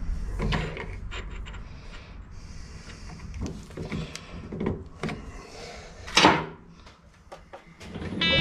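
Scattered metal clicks and knocks as a steel bar is set into the three-jaw chuck of a Harrison lathe, with one louder, brief scrape about six seconds in.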